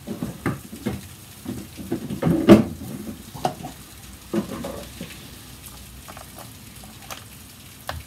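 Irregular plastic knocks and clatter from handling at a pole pruner head's oil tank while it is filled with chain oil and capped, loudest about two and a half seconds in. Rain hisses faintly in the background.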